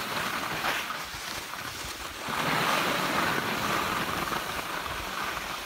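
Steady rushing noise of wind on the microphone and skis sliding over packed snow, growing louder about two seconds in.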